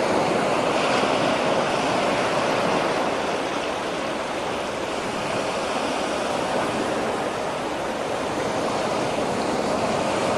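Waves washing in, a steady rushing noise that swells and eases slightly.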